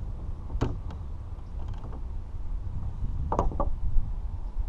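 Wind rumbling on the action-camera microphone, with a few short creaks and clicks from handling gear in a plastic kayak: one about half a second in, and a quick pair a little past three seconds.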